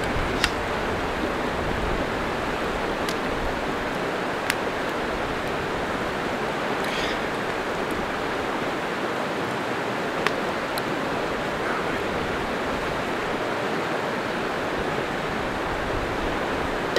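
A steady rushing hiss, with a few sharp light clicks of metal tongs against a frying pan scattered through it.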